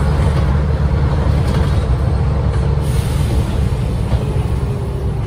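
Renault PR100.3 bus's 9.8-litre six-cylinder turbocharged diesel (Renault MIPR 06.20) driving the bus along under way, heard inside the cabin as a steady low drone with a faint whine above it.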